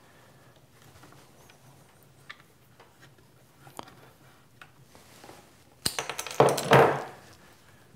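Faint clicks of hands fitting cable glands into the plasma cutter's back panel, then about six seconds in a loud burst of metallic clattering and rustling lasting about a second, as a coil of wire and a hand tool are picked up off a workbench.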